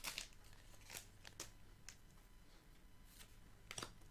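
Faint crinkles and clicks of a Pokémon card booster pack's foil wrapper and cards being handled as the pack is opened: a few short, separate rustles, the clearest about a second and a half in and near the end.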